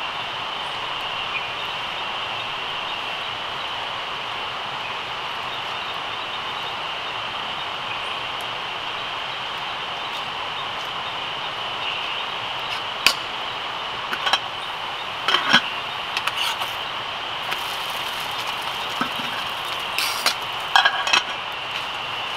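Steady high-pitched chirring of night insects in tropical forest, with a cluster of short clinks and knocks in the second half as a small metal cup and camp utensils are handled.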